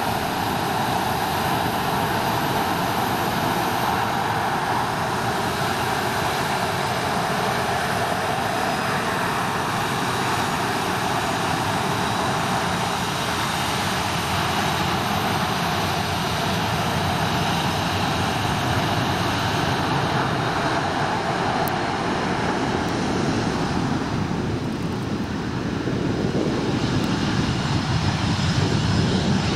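Boeing 737-500's CFM56 turbofan engines running at taxi power: a steady jet rush with a thin high whine in it. Near the end the sound grows louder and deeper.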